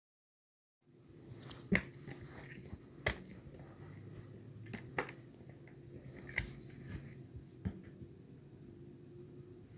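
Scattered light clicks and knocks, about one every second or two, from ceiling fan parts being handled, over a faint steady hum.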